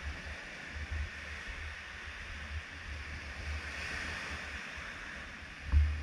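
Small sea waves breaking and washing up a sandy shore, the surf swelling about two-thirds of the way in. Wind buffets the microphone with a low rumble, and a louder low thump comes near the end.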